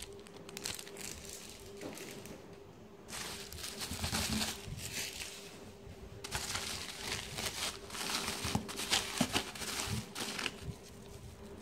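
Plastic parts bags and bubble wrap crinkling and rustling as hands dig through a packed cardboard box, in two longer spells with a few sharp crackles. A faint steady hum runs underneath.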